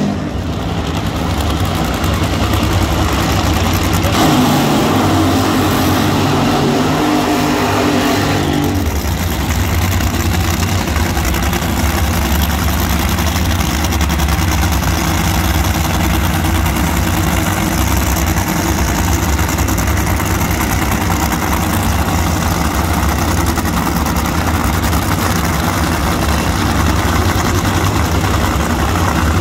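Supercharged nitro funny car engines running loud and steady, with a harsher, fuller stretch from about four to nine seconds in.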